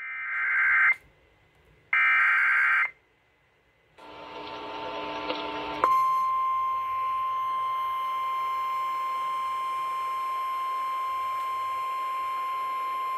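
Emergency Alert System tones on an FM broadcast: two harsh, screeching data bursts about a second each, then after a short pause a buzzy tone for about two seconds. This gives way to a single steady, high-pitched alert tone (the 1050 Hz weather warning tone) that holds on, signalling that a severe thunderstorm warning is about to be read.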